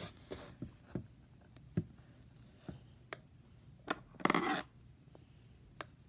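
Metal dental pick picking at and lifting cut iron-on vinyl from its backing sheet: scattered light ticks and scratches, with one short, louder scraping rustle about four seconds in.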